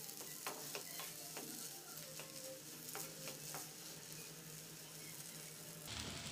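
Spatula stirring potato-and-pea samosa filling in a non-stick pan, with a faint sizzle from the filling and several light clicks of the spatula against the pan in the first few seconds.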